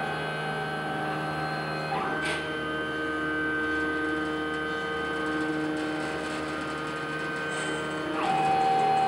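CNC machine's axis motors driving a test move, a steady whine of several tones that jumps in pitch about two seconds in and again near the end as the motion changes.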